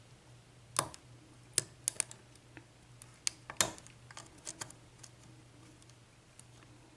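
Scattered small metal clicks, seven or so at uneven intervals, from a lock pick and tension wrench working the pin stacks inside a Brinks 6-pin brass padlock during single-pin picking.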